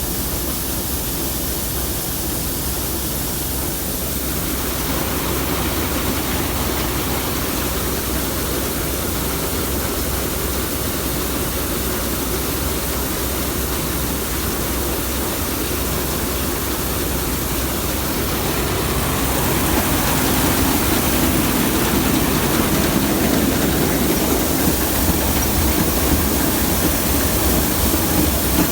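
Combine running steadily, engine and threshing machinery together, growing louder about two-thirds of the way through.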